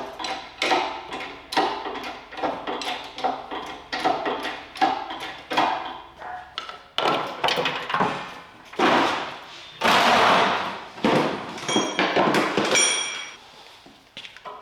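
Engine hoist being worked to lift a Datsun 520's engine and transmission together on one hook: a rapid run of metallic clanks and thumps, about two a second. Near the end come longer scraping strokes and a few high metallic pings.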